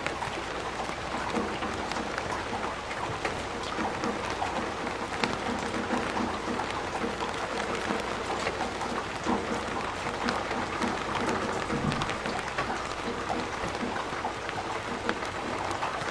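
Heavy rain falling on a plastic porch roof: a dense, steady patter of countless small drop hits.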